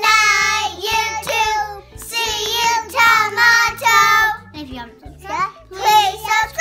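Three young children singing together in high voices, in several phrases of long held notes with short breaks between them.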